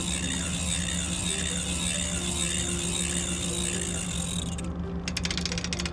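Hand-cranked trolling winch being turned: a steady whirr of the spool, then a fast run of ratchet clicks from the pawl near the end. A steady low hum runs underneath.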